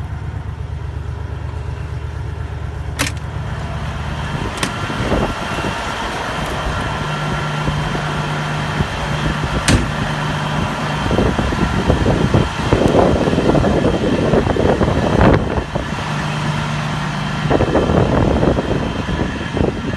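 Semi truck's Cummins ISX diesel idling with a steady low hum, a sharp click about three seconds in; after that wind noise in a blizzard mixes in, rising in loud gusts in the middle and near the end.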